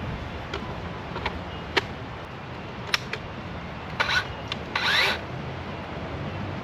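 Handling sounds as a DeWalt electric chainsaw is topped up with bar oil: a few sharp clicks, then two short scraping, rubbing noises about four and five seconds in. The saw is not running.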